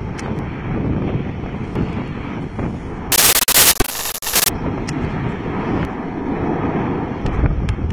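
Low, steady rumbling roar from the churning lava lake of Masaya volcano's Santiago crater. About three seconds in, a loud harsh burst of noise lasts about a second and a half. Faint sharp pops come here and there.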